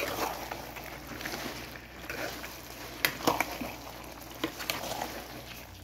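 Spatula stirring potato chunks, tomatoes and wet spinach purée in a pan: soft squishing and scraping, with several sharp clicks of the spatula against the pan.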